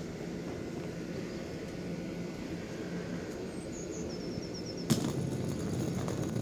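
Steady low rumble of traffic and train station surroundings, with a quick run of high, falling chirps about three and a half seconds in and a single sharp knock just before five seconds.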